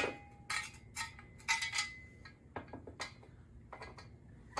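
Light metallic clinks and taps, several in the first two seconds and fainter ones after, some with a short ring: screws and the metal stand bracket being handled and fitted against the back of an LED panel.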